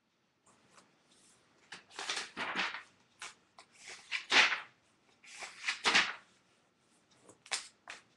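Rustling and handling noises close to the microphone, in several irregular bursts, the loudest about halfway through.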